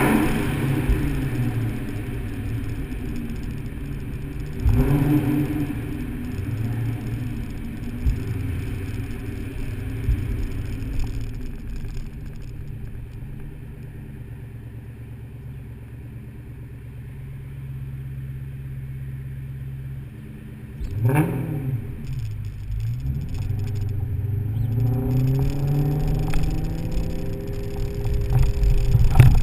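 2003 SVT Mustang Cobra's supercharged V8 driving with the top down: revs rise and fall through the gears, settle to a steady lower hum for a while, give one quick rev up and back down about two-thirds through, then build for a long acceleration near the end.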